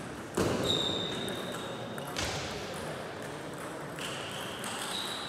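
Table tennis hall noise: a couple of sharp ball clicks and a long high-pitched squeak over a steady background of play and distant voices.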